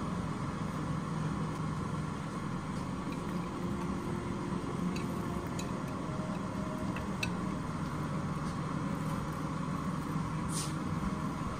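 A steady mechanical hum, like a machine running, with a few faint clicks near the end.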